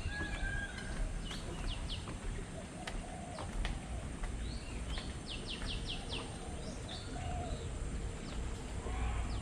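Several birds calling together: quick high chirps and short rapid runs of notes, mixed with lower repeated calls, over a steady low rumble.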